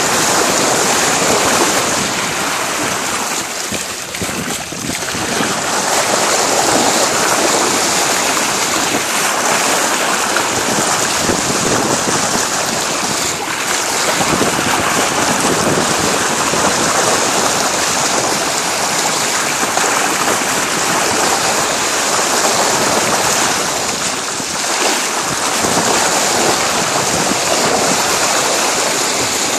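A sailboat's bow wave rushing and splashing steadily along the hull as the boat moves through the sea, easing briefly twice, with wind on the phone's microphone.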